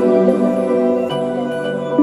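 Background music with held notes that change every second or so.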